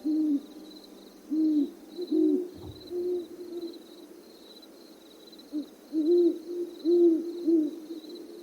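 An owl hooting in short bunches of low hoots, some rising and falling and overlapping, with pauses between the bunches.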